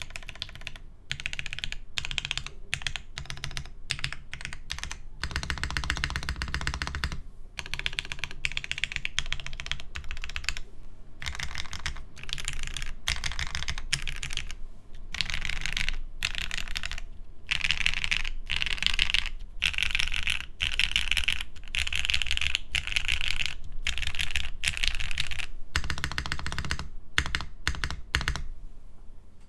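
Typing on a Mode Sonnet mechanical keyboard with Gateron Black Ink switches on a plastic plate: fast runs of key clacks in bursts of a few seconds, with brief pauses between them.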